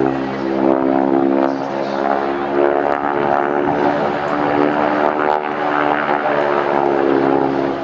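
North American SNJ/T-6 Texan's Pratt & Whitney R-1340 nine-cylinder radial engine and propeller in flight, a loud, steady drone.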